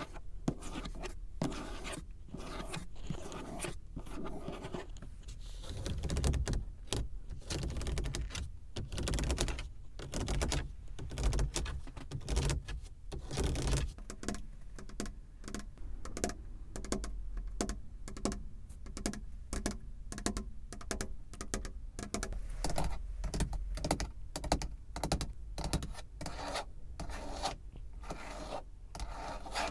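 Fingers tapping and scratching on a car's surfaces in quick, irregular strokes, several a second, with heavier, deeper knocks from about six to fourteen seconds in.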